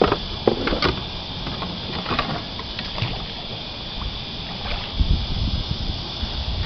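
Scattered knocks, clicks and a few dull thumps on a kayak, over a steady, high cicada drone.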